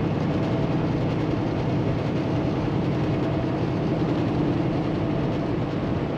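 A 2016 Kenworth T680 semi truck heard from inside the cab while cruising: its Paccar MX13 diesel engine running steadily at constant speed, with road and tyre noise.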